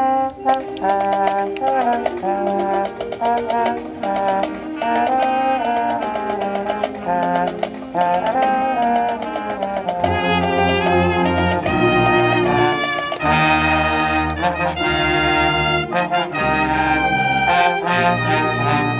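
High school marching band playing outdoors: trumpets, mellophones and a sousaphone over a drumline with snare and bass drums. The sound gets fuller and deeper about ten seconds in.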